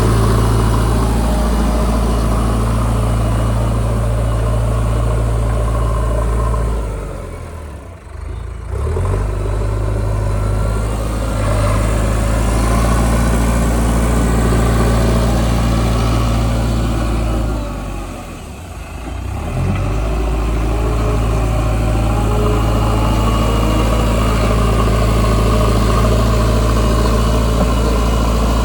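JCB backhoe loader's diesel engine running steadily. Its sound falls away twice, about a quarter of the way in and again about two thirds in, and picks back up each time.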